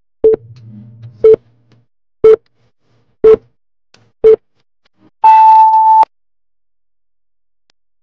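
Electronic countdown timer beeps: five short beeps about a second apart, then one longer, higher beep marking the end of the count.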